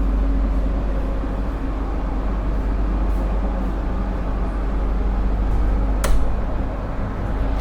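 Passenger train running, heard from inside the coach: a steady low rumble with a noisy haze of running sound, and a single sharp click about six seconds in.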